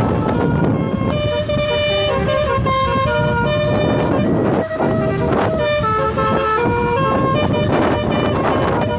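Basuri telolet multi-tone horn playing a quick melody, its notes stepping up and down every fraction of a second without pause, over a steady low vehicle rumble.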